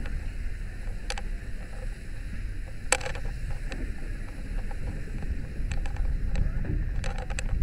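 Metal clicks and knocks from a firefighter's gear and tools as he moves, a few scattered ones and then a quick cluster near the end, over a steady low rumble.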